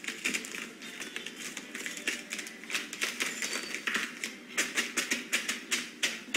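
Dry, crumbly food being crushed by hand inside a plastic zip-top bag: a crackling crunch with the plastic rustling. The crunches come sharper and more regular, about three a second, in the last couple of seconds.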